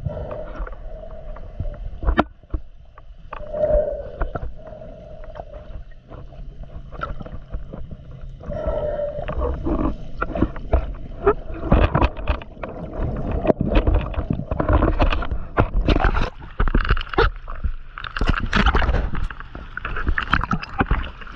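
Underwater noise around a scuba diver: the wavering whine of boat motors on a busy reservoir overhead, with bubbles gurgling and clicking. The noise grows rougher and louder in the second half.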